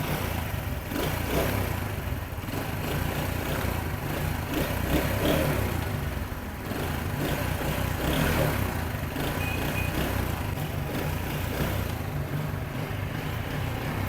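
70 cc single-cylinder four-stroke motorcycle engine running steadily with a low, even throb, being checked with the clutch pressed after a new clutch bearing was fitted; the clutch bearing noise is gone.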